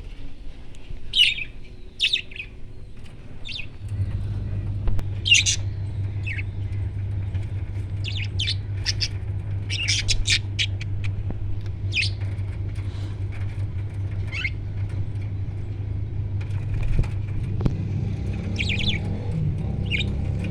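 Pet parrots giving short, scattered squawks and chirps. A steady low hum comes in about four seconds in and runs under the calls.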